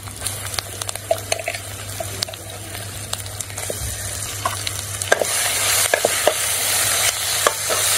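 Hot oil sizzling in a metal kadai as ground gongura (sorrel leaf) paste is added to the tempering, then stirred and scraped with a slotted metal spatula. The sizzle grows louder about five seconds in, when the stirring starts, with scattered scraping clicks.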